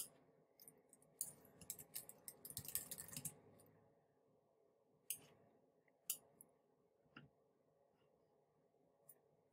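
Faint computer keyboard typing in a quick run of keystrokes for about two seconds, then a few single mouse clicks about a second apart.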